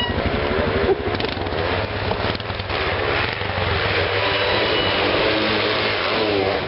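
ATV engine running with a steady low drone while its revs waver up and down.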